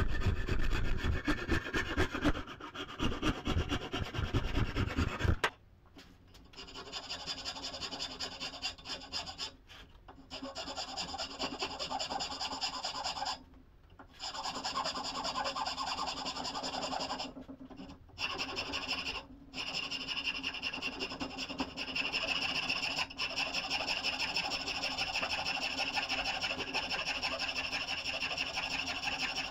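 Rasping and scraping on the kukri's wooden maple handle: fast strokes for about the first five seconds, then a steadier scraping that stops and starts several times.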